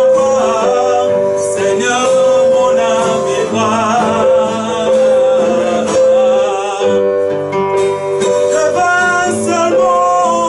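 A man singing a worship song with held, wavering notes, accompanying himself by strumming an acoustic guitar.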